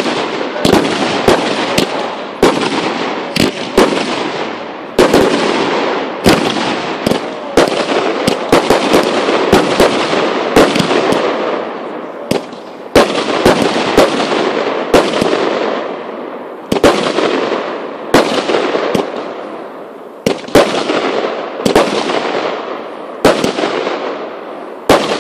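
Aerial fireworks going off in rapid succession: sharp bangs about one or two a second, each trailing off in a fading hiss.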